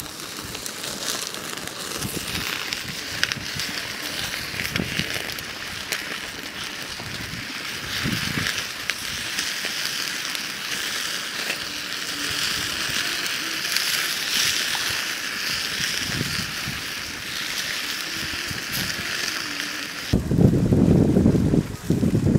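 Open wood fire crackling and hissing under chicken leg pieces grilling on a wire rack, with many small sharp crackles. Near the end this gives way to a low rumble of wind on the microphone.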